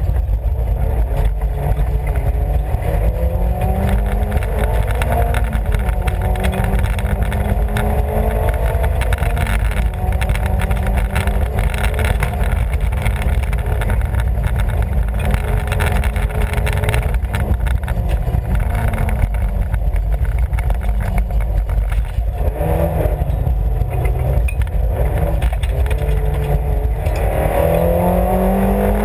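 Rally car's engine heard from inside the cabin, driven hard: the revs climb and fall back again and again through gear changes, with a dip about 22 seconds in and hard acceleration near the end.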